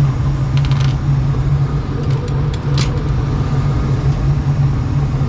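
Gas furnace running with its burners lit, a steady low hum. A few faint clicks about half a second in and near three seconds.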